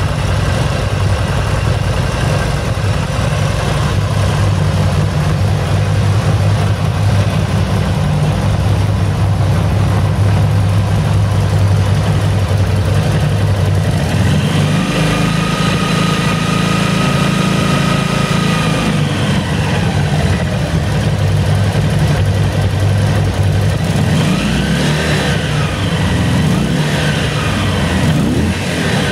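Harley-Davidson XL1200L Sportster's air-cooled 1200 cc V-twin running at idle. It is revved up and held for several seconds about halfway through, then revved up and down again near the end.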